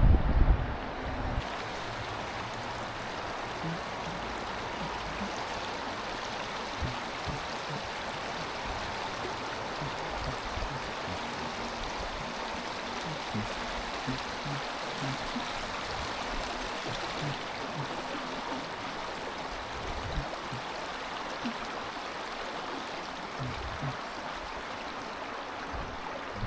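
Mountain stream water running over rocks, a steady rushing. A brief low rumble sits at the very start.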